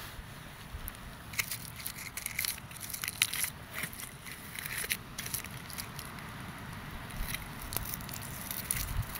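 Irregular crackling and crunching of dry leaves and stalks, in short sharp clicks that come thickest between about one and five seconds in.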